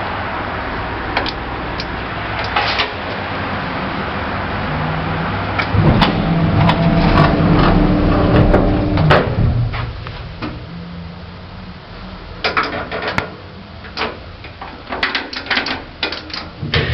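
A lift modernised in the 1980s in operation: a steady running and travel noise with a low hum, loudest in the middle. Near the end come a series of sharp clicks and clunks, like the lift's doors and mechanism.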